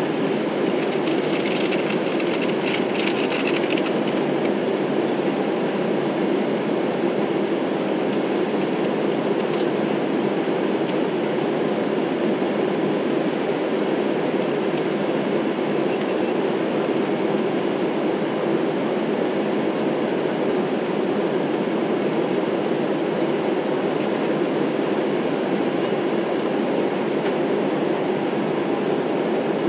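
Steady cabin noise of a jet airliner in flight, heard from a window seat over the wing: the engines and rushing air make a deep, even rush that does not change.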